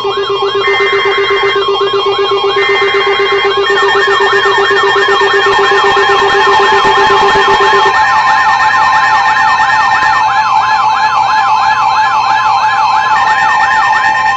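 Emergency Alert System activation: short bursts of screeching SAME data tones, a steady two-tone attention signal, and a siren-like wail rising and falling about three times a second. The lower steady tone stops about halfway through; another data burst comes near the end.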